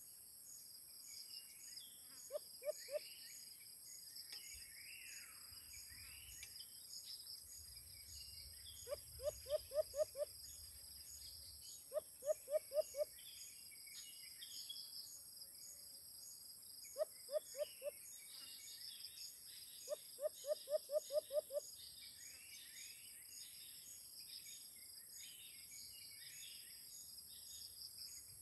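White-eared brown dove giving about five short runs of quick, low hooting notes, three to eight notes per run, over a steady high insect drone with other small birds chirping.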